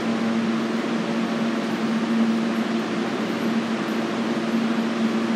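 Steady mechanical hum with a constant low droning tone over an even hiss, unchanging throughout.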